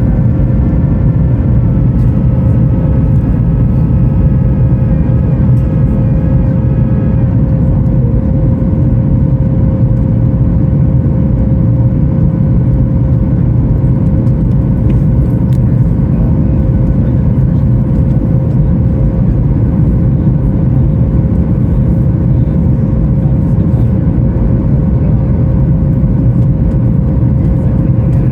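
The CFM LEAP-1B turbofan engines of a Boeing 737 MAX 9, heard from inside the passenger cabin: a loud, steady rumble with a constant hum. A set of higher whining tones fades out about seven seconds in.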